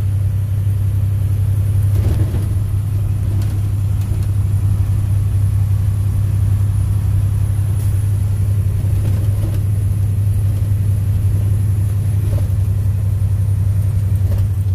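Semi-truck's diesel engine and drivetrain heard from inside the cab, cruising steadily in eighth gear of its 10-speed manual transmission: a steady low drone with road noise.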